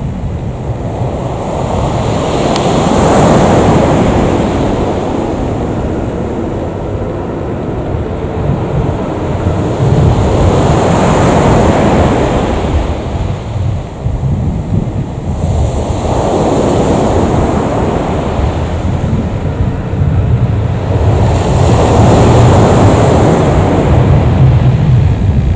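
Loud rushing noise that swells and fades four times, several seconds apart, over a steady low rumble from the twin turboprops of a Beech 1900C taxiing at low power.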